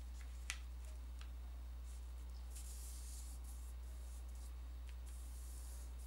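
Fingers pressing and sliding along the folds of a paper sheet to crease them, a faint papery rubbing with a small tap about half a second in. A steady low electrical hum runs underneath.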